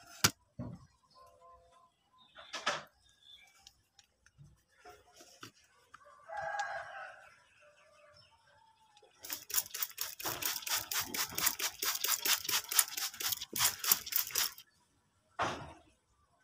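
A rooster crows once about six seconds in. Later comes a fast, even run of scratchy strokes, about five a second, lasting some five seconds; this is the loudest sound.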